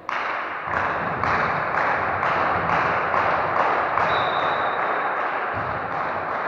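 A loud, dense rhythmic din with sharp beats about two a second, starting suddenly. About four seconds in, a referee's whistle sounds briefly.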